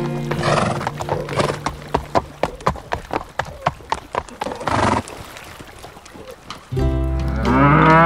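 Horse sound effects over background music: hoof clip-clops about three a second, with a horse neigh about half a second in and another around five seconds in. Near the end a louder animal call with a sweeping pitch begins.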